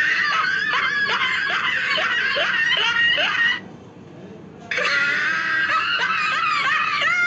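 High-pitched laughter sound effect: squealing, gliding laugh sounds in two long bursts, with a pause of about a second in the middle.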